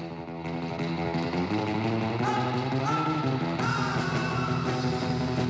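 Rock music led by guitar. It sets in just before with a downward slide, holds steady notes, and a melody climbs about two seconds in.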